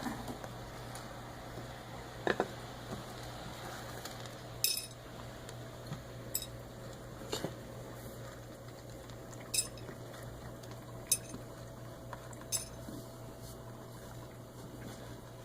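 A pet wearing a cone eating from a bowl: about seven short clinks and knocks against the bowl, one every second or two.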